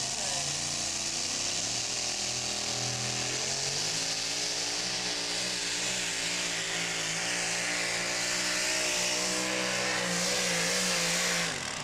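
Two-wheel-drive pulling truck's engine running hard at high revs as it drags a weight-transfer sled down a dirt track, with a strong hiss over it. Its engine speed rises and falls in quick waves through the second half, then the sound cuts off suddenly near the end as the pull finishes.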